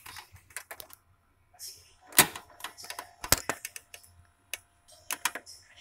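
Plastic clicks and knocks of a VHS cassette being handled, with short rustling between them; the two loudest knocks come about two and three seconds in.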